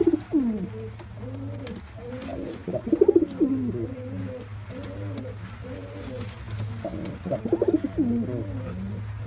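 Male domestic pigeon cooing over and over, a string of short low rolling coos, with two louder, denser runs of cooing about three seconds in and again near eight seconds.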